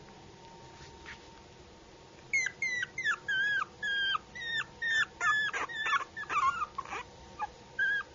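Puppy whining: after about two seconds of quiet, a string of short high-pitched whines begins, each dropping in pitch at its end, coming two or three a second.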